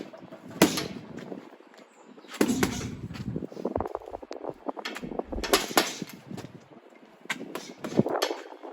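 Boxing gloves striking a punching bag: sharp thuds in irregular short combinations with pauses between.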